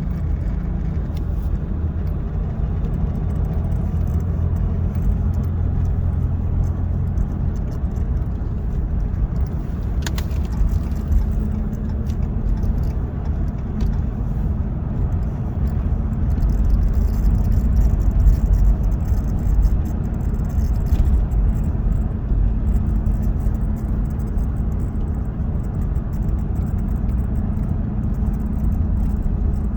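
Inside the cab of a 2015 Ram 1500 EcoDiesel on the move: steady engine and road rumble, with a light rattling buzz from the steering wheel horn button. The buzz comes from the horn button cover vibrating loose and stops when the button is pressed lightly at the side.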